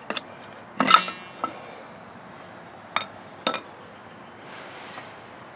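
Steel-backed brake pads and the caliper clinking as the worn pads are pulled out of a truck's front brake caliper. One louder metallic clank with a short ringing tail comes about a second in, then two sharp clicks about half a second apart near the middle.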